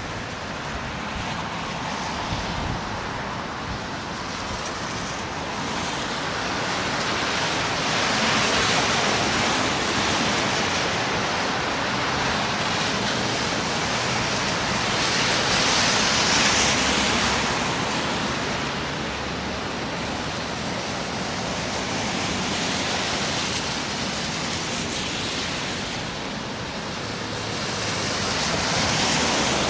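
Road traffic on slushy, snow-covered streets: a steady rush of tyre hiss with a low rumble. It swells three times as vehicles pass, about eight, sixteen and twenty-eight seconds in.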